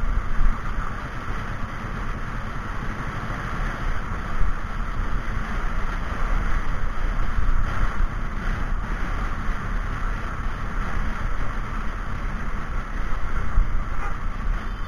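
Steady rush of wind on the microphone with a low rumble of a vehicle travelling on a road, heard as a vehicle-mounted action camera moves along.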